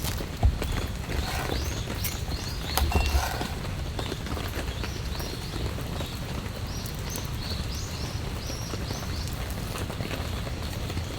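Steady rain falling, with a bird calling in two short runs of high, quick notes.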